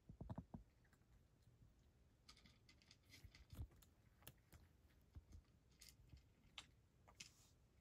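A cat eating from a bowl: faint, irregular crunching clicks of chewing, with a few soft low knocks just after the start.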